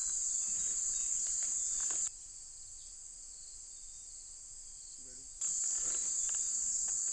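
Steady, high-pitched chorus of insects such as crickets, forming one dense band of buzzing. It cuts off abruptly about two seconds in, leaving a much quieter background, and comes back just as suddenly about five and a half seconds in.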